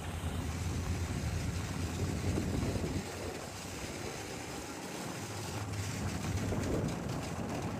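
Snowmobile, a Ski-Doo Expedition with the Rotax 900 ACE three-cylinder four-stroke, running steadily while riding across snow, with a constant low engine hum under the rush of travel.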